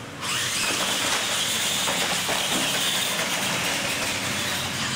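Two R/C monster trucks launching together off the drag-strip start line and running flat out on dirt. The noise starts suddenly about a quarter second in, then holds as a steady high whine of motors and gears mixed with the hiss of tyres on dirt, easing slightly near the end.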